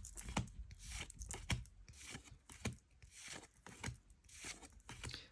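Booster-pack foil wrapper and trading cards being handled: a string of short, irregular crinkles, tears and scrapes as a pack is opened and the cards are slid out.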